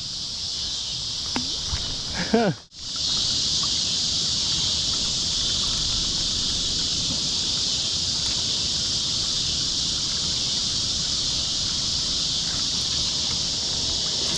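Steady high-pitched chorus of insects buzzing, with a low rushing noise underneath. The sound breaks off for a moment about three seconds in, then carries on unchanged.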